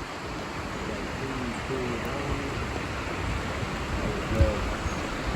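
Steady rushing noise of running water, with faint distant voices.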